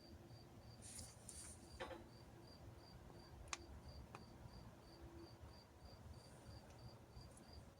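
Near silence, with a cricket chirping steadily at about three chirps a second and a few faint light clicks.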